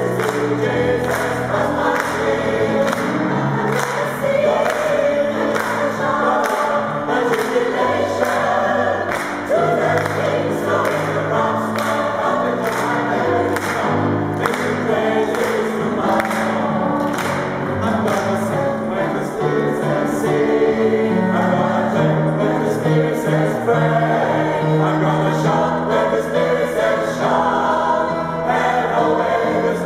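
Mixed choir of men and women singing together in harmony, over a steady beat.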